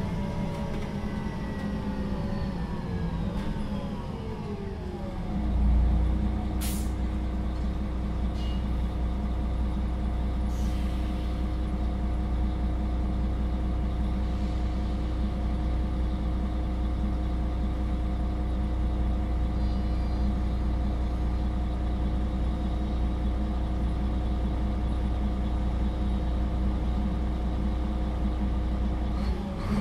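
Solaris Urbino III 12 city bus slowing to a stop, its engine and drivetrain note falling in pitch over the first five seconds, then idling steadily. A short sharp hiss of air comes about seven seconds in and a softer one about ten seconds in, typical of a bus standing at a stop. The engine starts to pick up right at the end as the bus pulls away quickly.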